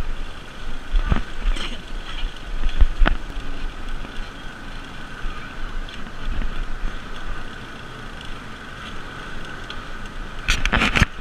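Bicycle ridden over a rough, wet dirt road: steady road rumble with the frame and handlebars knocking now and then over bumps, and a burst of loud clatter about ten and a half seconds in. A steady high tone runs underneath.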